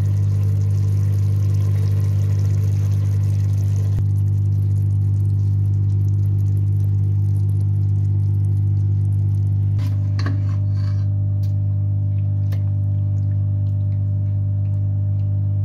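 A steady low machine hum throughout, like a motor running. From about ten seconds in, a metal spoon clinks and scrapes a few times as curry is served into a steel bowl.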